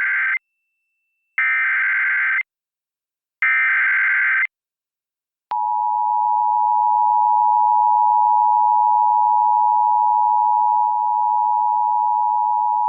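Emergency Alert System activation: the end of one short burst of buzzing SAME digital header data, then two more identical bursts about a second apart. About five seconds in, the EAS two-tone attention signal begins and holds steady.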